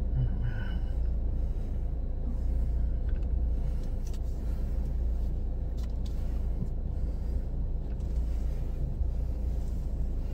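Car engine idling: a steady low rumble with a faint even hum above it and a few small clicks.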